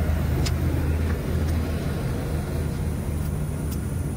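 Steady low hum of an idling truck engine, with a couple of faint clicks.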